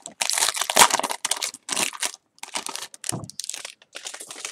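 A trading card pack wrapper being torn open and crinkled in the hands, with the cards being handled, in a run of irregular crinkles and rustles with short pauses.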